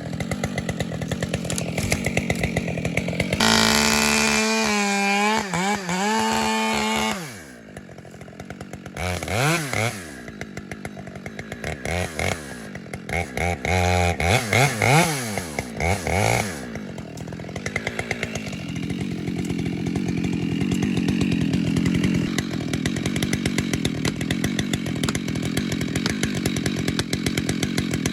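Gas chainsaw running: it idles, then revs high for a few seconds with a wavering pitch. After that come a string of quick throttle revs, each rising and falling, before it settles back to steady running.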